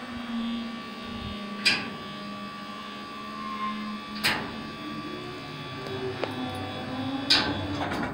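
Electric long-arm tarp roller with a 900-watt motor and 60:1 gearbox humming steadily as it rolls the tarp over a dump trailer's box. Three sharp clicks or knocks come along the way.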